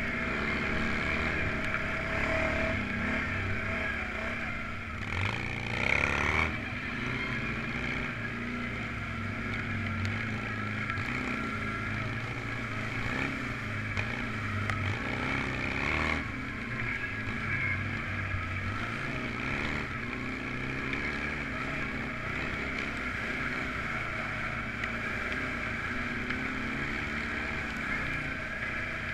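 All-terrain vehicle engine running steadily while riding along a trail, with a louder rush of noise about five to six seconds in and again around sixteen seconds.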